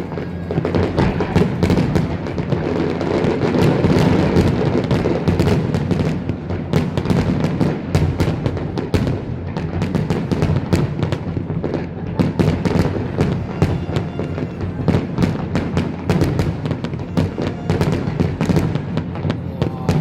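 Fireworks display: continuous, dense volleys of sharp bangs and crackles, many reports a second, over a steady low rumble.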